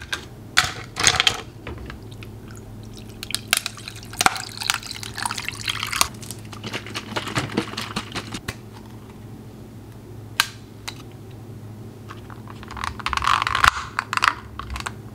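Creamer poured from a carton into a plastic cup of iced coffee, with scattered clicks and knocks as the cup is handled. Near the end a clear plastic lid is pressed on and snaps into place. A low steady hum runs underneath.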